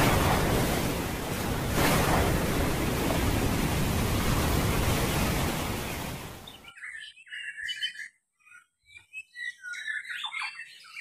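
A loud, steady rushing noise for the first six and a half seconds, fading and then stopping. After it, white-rumped shamas (murai batu) in contest cages sing in short, separate whistles and chirps.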